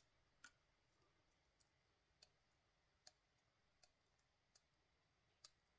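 Faint, scattered clicks of a metal lock pick tapping inside the empty housing of an ASA D12 lock cylinder, about seven in all, a little under a second apart.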